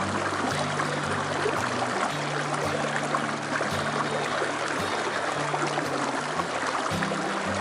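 Stream water flowing and splashing steadily, with a soft melody of low held notes that change every second or so underneath.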